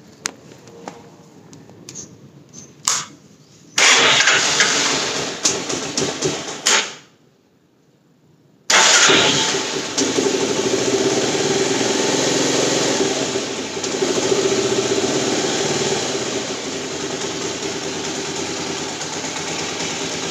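Motorcycle engine cold-started: after a few handling clicks there is a loud burst about four seconds in that stops, then about nine seconds in the engine catches and settles into a steady idle.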